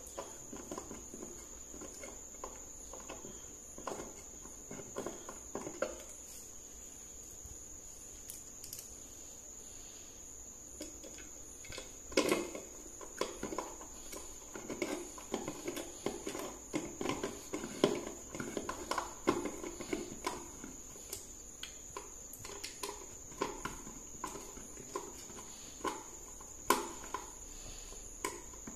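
Irregular small clicks, taps and rustles as screws are fitted by hand into a plastic TV stand neck and its cling-film-wrapped base, with a lull of a few seconds early on. A faint steady high-pitched whine sits underneath.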